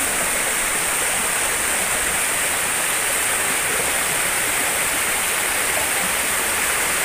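Steady rush of flowing water in a rocky forest stream, an even hiss at a constant level.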